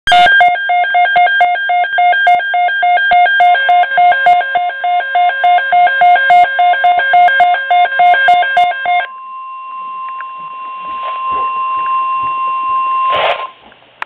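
Weather alert radio sounding its alarm: rapid repeating electronic beeps, about three a second, for about nine seconds. A steady tone near 1 kHz, the weather radio's warning alarm tone, joins a few seconds in and holds on alone after the beeps stop. A short loud burst comes near the end.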